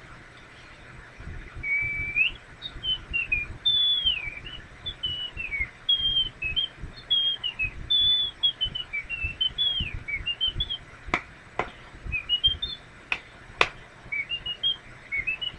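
A man whistling a dainty, high tune of short, quick, gliding notes, like a bird's chirps, starting about a second and a half in. A few sharp clicks come in the second half.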